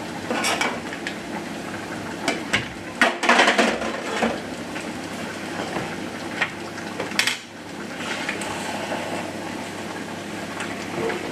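A metal spoon clinking and scraping against a roasting tray and a stainless saucepan as roasted vegetable chunks are moved into a pan of chilli, with a cluster of clatters about three seconds in and a sharp knock near the middle. Later a wooden spoon stirs the chilli in the saucepan.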